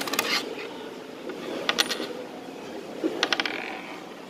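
A coin spinning and clattering on a wooden tabletop, heard as three short bursts of rapid rattling clicks.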